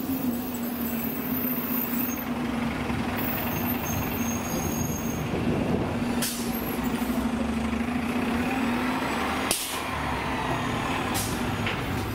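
City street traffic with a steady low hum, broken by a few short hisses about six, nine and a half and eleven seconds in.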